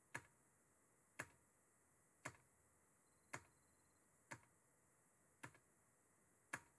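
Single key presses on a computer keyboard, evenly spaced about one a second, seven in all, each stepping a DOS graphics test on to its next screen.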